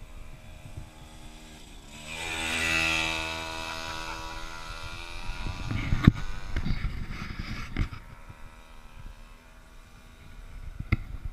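Pocket ATV's small engine buzzing as the mini quad passes close, swelling to its loudest about three seconds in and then fading away. A sharp knock follows about six seconds in, with a couple of seconds of rumbling thumps, and a few more knocks near the end.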